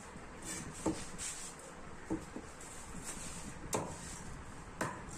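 Heavy knife chopping through a seer fish head onto a wooden chopping block: sharp knocks, four strong ones about a second apart with lighter taps between.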